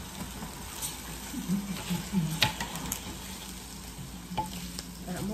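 Meat sizzling on a hot tabletop grill plate as pieces are laid on with metal tongs, a steady hiss with a few sharp clicks of the tongs, the loudest about two and a half seconds in.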